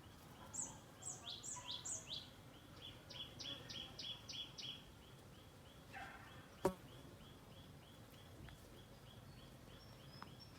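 Several garden birds calling: a thin high note repeats about four times a second throughout, over it come quick falling whistles in the first couple of seconds and then a run of about eight quick notes. A single sharp click about two-thirds of the way in is the loudest sound.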